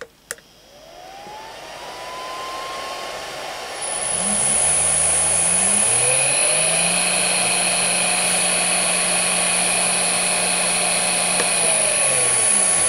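Two keypad clicks, then a 1 HP three-phase motor driven by a variable frequency drive spins up with a rising whine. About four seconds in the drive's cooling fan comes on and everything gets louder, with a steady high whine and hum. The pitch falls near the end as the motor slows.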